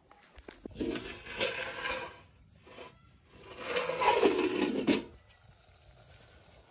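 Two spells of scraping and rattling, each about a second and a half long, from a metal cooking pot and its lid being handled; the second spell is the louder.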